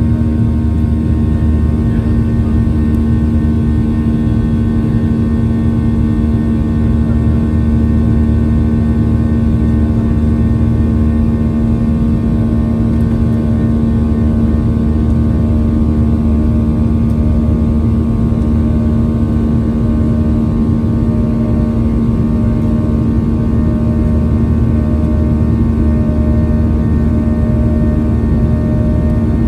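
Boeing 737-800's CFM56-7B turbofan engines running at climb power after takeoff, heard inside the cabin as a steady low rumble with several steady humming tones.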